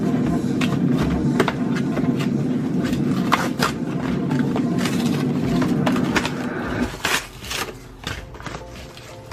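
A steady low hum that cuts off about seven seconds in, under irregular clicks and knocks of small objects being picked up and set down on a desk.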